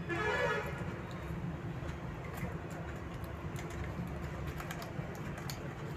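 Scattered small crunching clicks of children chewing Oreo biscuits, over a steady low hum.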